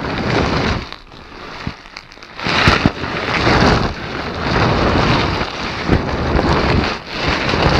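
Kaiju roar sound effects taken from Japanese monster films: a few loud, noisy, rumbling roars one after another, each swelling and fading.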